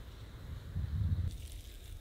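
Clumps of moss being pulled apart and pressed by hand, a soft crushing and rustling that is loudest about a second in.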